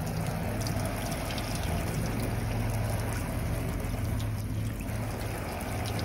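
Water running onto a vinyl boat cushion as the mildew remover is rinsed off, a steady rushing over a low hum.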